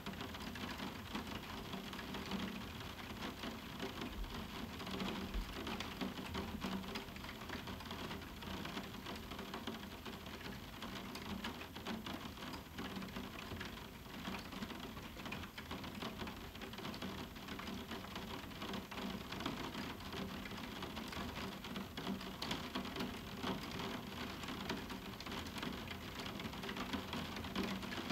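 Moderate summer rain falling on a roof window: a steady, dense patter of individual drops hitting the pane, without thunder.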